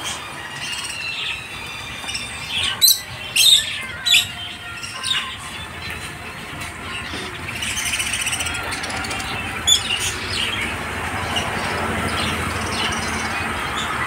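A flock of caged budgerigars chattering and chirping, with a few loud, shrill squawks about three seconds in and another near ten seconds.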